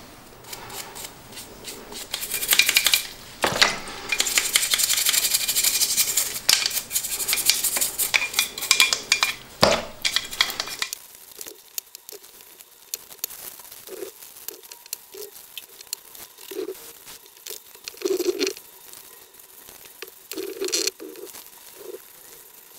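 Cleaning the parts of a derusted Stanley No. 113 compass plane by hand. For the first ten seconds or so there is harsh scrubbing and rattling full of clicks. It stops suddenly, followed by quieter rag rubbing and light knocks of metal parts being handled.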